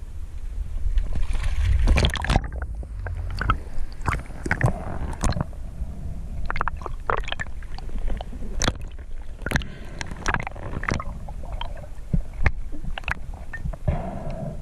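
Water sloshing and gurgling around a waterproof camera housing as a freediver kicks at the surface and goes under, with many sharp clicks and pops. A low rumble is strongest in the first two seconds.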